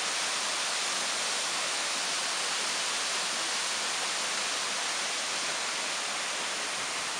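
Waterfall, an even, steady rushing hiss of falling water.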